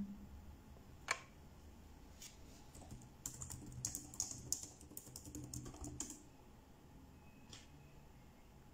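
Typing on a keyboard: a single key click about a second in, then a quick run of key clicks from about three to six seconds in.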